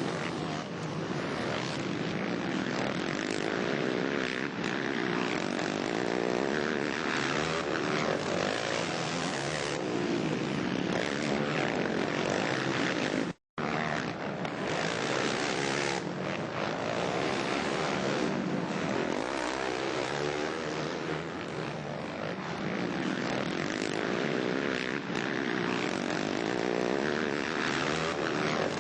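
Four-stroke motocross bikes racing, their engines revving up and down continuously. The sound cuts out for a split second about halfway through.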